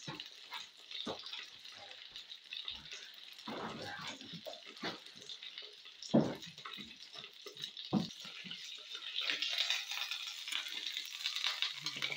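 Food sizzling in a frying pan on a camping gas stove, a steady hiss that grows louder from about nine seconds in. A few knocks and clatters cut through it, the sharpest about six seconds in and another about two seconds later.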